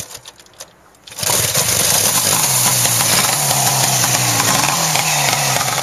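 Motorcycle engine starting. A few faint clicks come first, then about a second in the engine comes in suddenly and runs loudly and steadily with an uneven, slightly wavering note.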